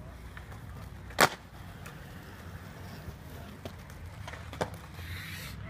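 Skateboard hitting concrete: one loud sharp clack about a second in, then a few lighter clicks later, over a low steady rumble.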